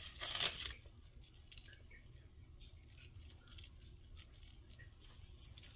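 Hands working black salt into a ball of tofu cheese dough on parchment paper: a short scratchy rustle at the start, then faint light handling noises.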